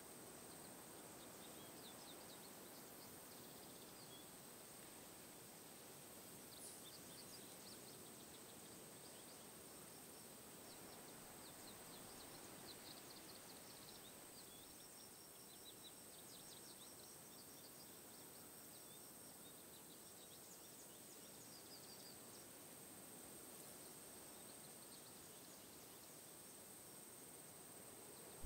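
Near silence: faint outdoor ambience with a steady high thin tone and scattered faint high chirps, mostly in the first two-thirds.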